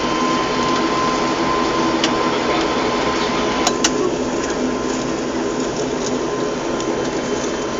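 Cabin noise of an ATR 72 taxiing: a steady drone from its twin turboprop engines and propellers, with a thin high steady tone over it. A few short clicks come about two seconds in and again near four seconds.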